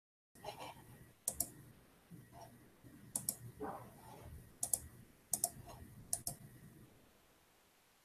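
Faint sharp clicks at a computer, coming in pairs about five times over six seconds, with soft low handling noise between them.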